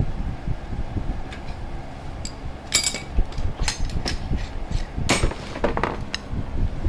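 A hammer striking metal on the car's suspension: about half a dozen sharp, ringing blows, irregularly spaced and starting about two seconds in, over the steady hum of a fan.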